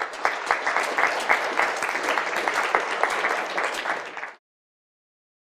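Audience applauding, a dense patter of many hands clapping, which cuts off suddenly a little over four seconds in.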